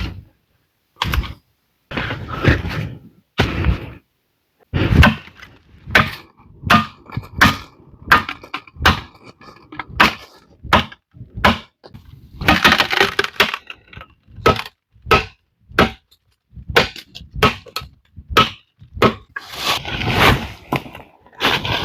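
Irregular sharp cracks and knocks of wood being broken and chopped, with longer crunching, splintering stretches in between.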